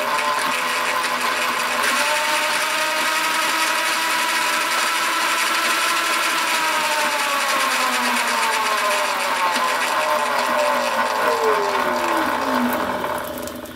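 Zero MX electric motorcycle's drivetrain spinning with the rear wheel off the ground: a motor whine with the drive chain running over the sprocket and plastic chain guide. It rises to a steady speed, holds there, then winds down in a long falling whine over the second half, stopping just before the end.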